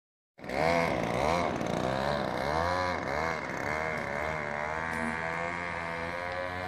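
Homelite 23cc two-stroke string-trimmer engine driving a friction-drive motorized bicycle, revving up and down several times, then running at a steadier speed and growing fainter as the bike moves away.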